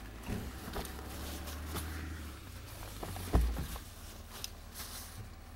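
Life jackets and gear being handled and lifted out of a boat's storage locker: fabric rustling and small knocks, with one thump about three and a half seconds in, over a low steady rumble.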